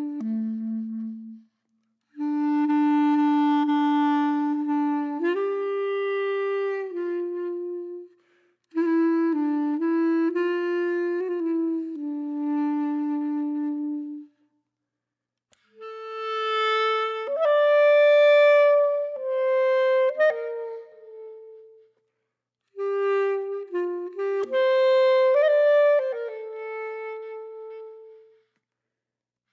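Background music: a single melody line of held notes that steps from pitch to pitch, in four phrases of a few seconds each with short silent gaps between them.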